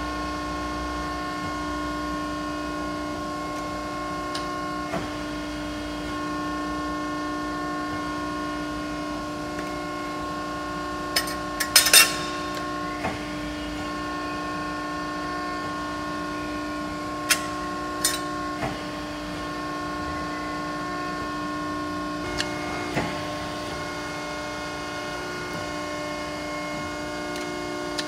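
135-ton Cincinnati CNC press brake running under power: a steady machine hum made of several held tones. A few sharp clanks break in, the loudest pair a little before the middle and more a few seconds later.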